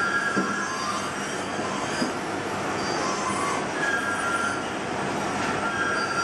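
A carving knife whittling a pine Dala horse, its short cuts through the wood squeaking now and then over a steady hiss of background noise.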